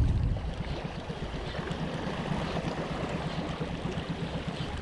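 Seawater lapping and washing among shoreline rocks, a steady wash of noise with no single event standing out.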